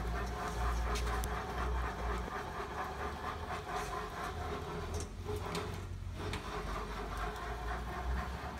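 Kwik-Way 797 flywheel grinder's table and guard being moved by hand through their travel with the motor off: a steady low rumble with a rapid rattling texture that eases off briefly about five seconds in.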